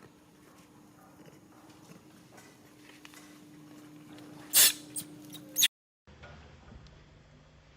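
A monkey gives two short, loud, harsh cries about a second apart over a faint steady hum. The sound then drops out briefly at an edit.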